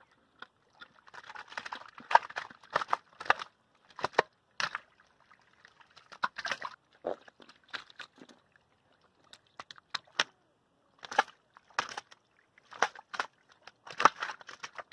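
Catfish flopping in shallow muddy water: a string of irregular wet slaps and splashes with short pauses between them.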